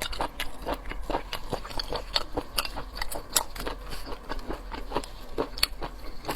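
Close-miked chewing and biting of seafood: irregular sharp clicks and crunches, several a second.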